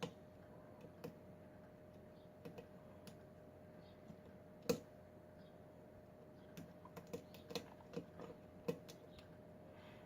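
Scattered light metallic clicks and taps of lock picks and a tension wrench working in a Kwikset pin-tumbler lock, one sharper click a little before halfway and a quick run of clicks in the second half.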